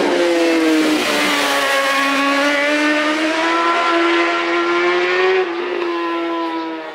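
Racing motorcycle engine running hard at high revs, its pitch dipping and then climbing steadily as it accelerates, with a short drop in pitch about five and a half seconds in, after which it is somewhat quieter.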